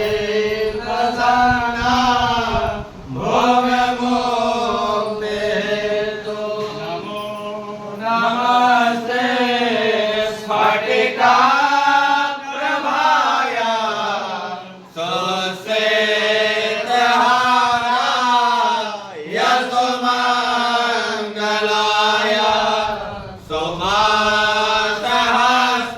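Hindu devotional chanting: a voice sings a hymn in long melodic phrases that rise and fall in pitch, with short breaks between phrases.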